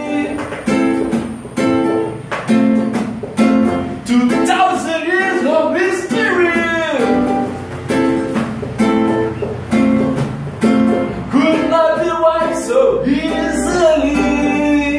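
A man singing while strumming a classical acoustic guitar in a steady, even rhythm.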